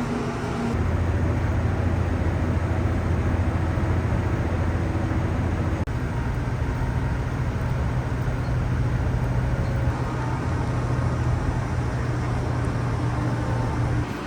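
Steady low vehicle rumble with a constant hum underneath. Its character changes abruptly about a second in and again about six seconds in.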